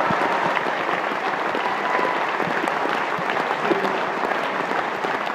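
Theatre audience and cast applauding: dense, steady clapping that holds at an even level.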